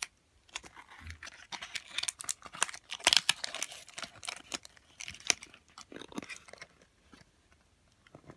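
Wrapper of a Snack World Trejara Box being handled and torn open: crinkling and tearing with many small clicks, stopping about seven seconds in.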